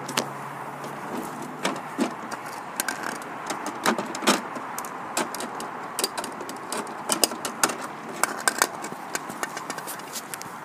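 Sharp, irregular plastic clicks and knocks from a toy garbage truck's lifting arm and miniature wheelie bins being worked by hand, over a steady background hiss.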